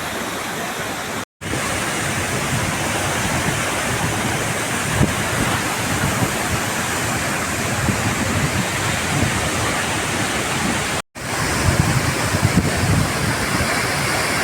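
Athirappilly waterfall rushing steadily, the falls at their low dry-season flow. The sound is broken by two brief silences, about a second in and near eleven seconds.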